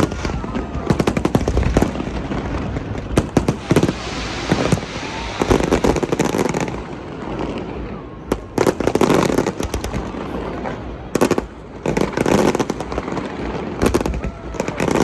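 New Year fireworks display: rapid volleys of bangs and crackling that come in dense clusters every couple of seconds.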